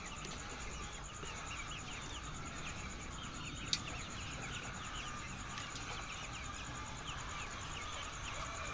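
Many birds chirping over one another, with a steady high insect-like trill behind them and one sharp click a little before the middle.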